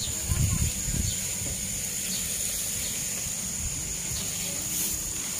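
Steady hiss of water spraying from a garden hose nozzle onto seedlings, with a brief low rumble about half a second in.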